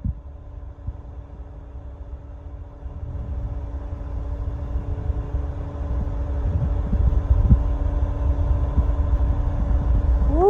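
Large crane's engine running with a steady low rumble and hum, the rumble growing louder over several seconds.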